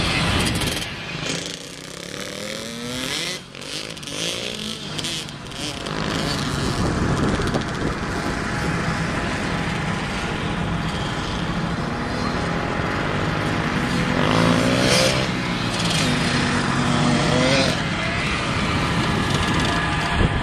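Small dirt bike engines running and revving as the bikes ride around, pitch rising and falling with each acceleration; the loudest pass comes about fifteen seconds in.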